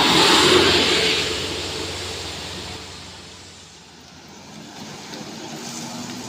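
A diesel box truck passes close by on wet asphalt: a rush of tyre hiss and engine noise at its loudest in the first second, dying away over the next three seconds. Toward the end a quieter, steady engine hum comes in.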